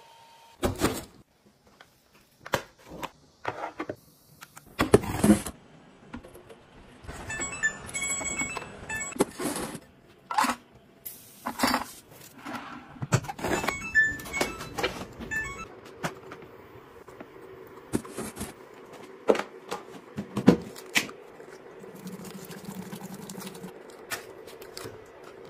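A string of short clicks, taps and rustles from small household items being handled, with a faint steady hum in the later part.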